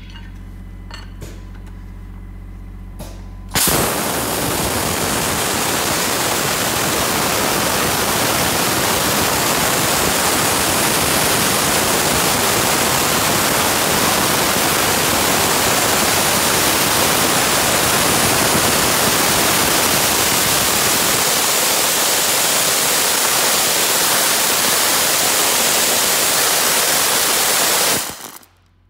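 Dry-ice blasting nozzle firing a jet of compressed air and 3 mm dry-ice pellets at a wooden beam: a loud, steady hiss that starts suddenly a few seconds in, holds for about 24 seconds and cuts off shortly before the end. Before it starts, a low hum with a few clicks.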